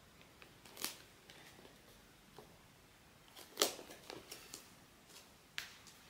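Blind box packaging being handled: scattered light taps, clicks and rustles, the loudest a sharp click about three and a half seconds in.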